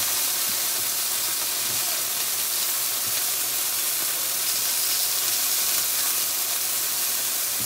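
Chicken pieces frying in a nonstick skillet, a steady sizzle, with a few faint taps as metal tongs turn the pieces.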